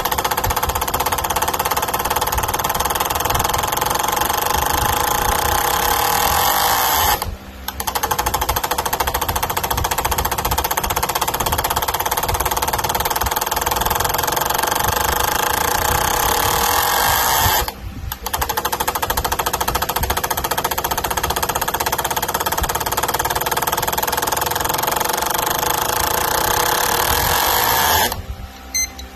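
Fuel injectors firing rapidly on an injector cleaning and flow-testing machine: a loud buzzing rattle that runs in cycles of about ten seconds. Each cycle ends with a falling pitch and a brief stop, and the last stops shortly before the end.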